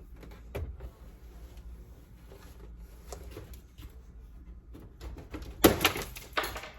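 Plastic interior door panel of a GMC Sierra being lifted up and off the door: a few light clicks and rubbing, then a quick cluster of sharp plastic clicks and knocks near the end as the panel comes free of its tabs.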